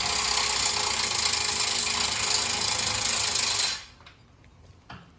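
A power tool running steadily with a loud, hissing, grinding noise, cutting off suddenly about four seconds in, followed by a few light clicks.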